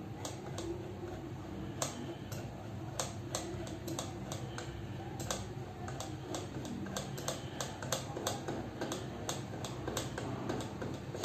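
Irregular sharp clicks from computer controls, single or in quick runs of several a second, as CT image slices are paged through, over a steady low hum.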